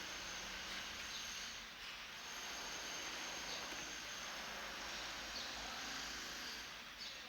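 Steady background noise: an even hiss with no distinct events standing out.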